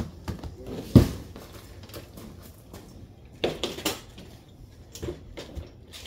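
A few sharp knocks and metallic clatters from a metal hand truck and a padded, strapped fridge being handled and shifted. The loudest knock comes about a second in, and another cluster follows a few seconds later.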